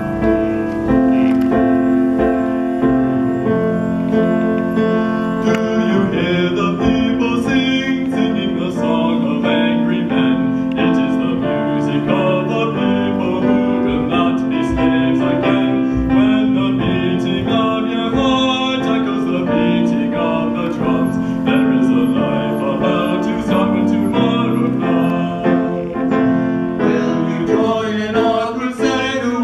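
Teenage choir singing with piano accompaniment, with a boy singing a solo line into a microphone partway through.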